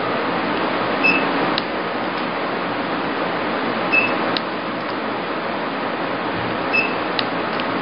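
E-light IPL handpiece of a KES MED-230 machine firing during hair removal: a short high beep about every three seconds, each followed about half a second later by a click as the lamp flashes. Under it runs the steady hiss of the machine's cooling fan.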